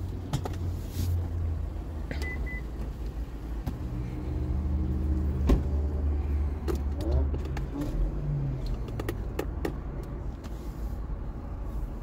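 Motor vehicle running with a steady low rumble; its engine tone rises and falls in pitch past the middle, with scattered clicks and knocks.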